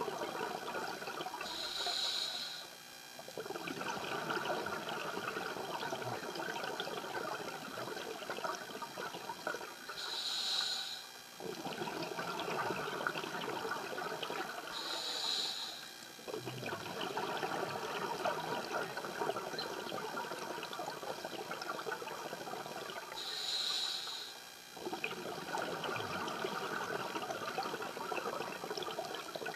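Scuba diver breathing through an open-circuit regulator underwater: a short hissing inhale, then a long crackling rush of exhaled bubbles. Four breaths, one every five to eight seconds.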